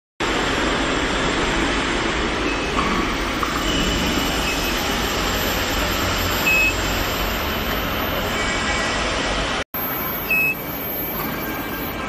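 Steady industrial machine noise, with two short high electronic beeps about six and ten seconds in.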